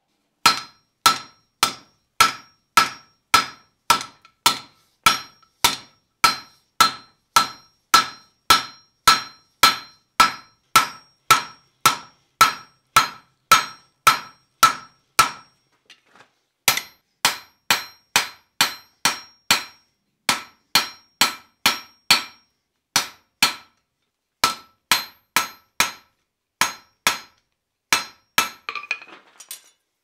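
Hand hammer striking a red-hot 3/4-inch square steel bar on the anvil at about two blows a second, each blow ringing, while the bar is drawn down to a taper. The hammering stops briefly about halfway, then resumes a little less evenly. A short rattle of lighter clinks comes near the end.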